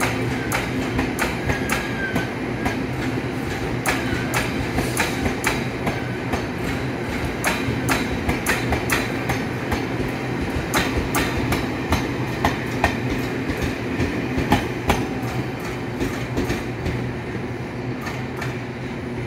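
Locomotive-hauled passenger coaches rolling out of a station: a steady rumble and hum, with many irregular sharp clicks and knocks from the wheels over rail joints and points. There are short faint wheel squeals in the first few seconds.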